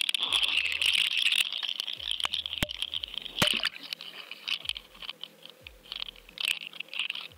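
Rushing, crackling noise on a GoFish Cam fishing camera's own microphone as it is cast out and goes into the water, with sharp knocks about two and a half and three and a half seconds in. The noise then thins to scattered crackles and rustles as the camera sinks.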